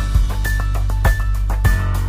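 Background music with a steady beat over a sustained bass line.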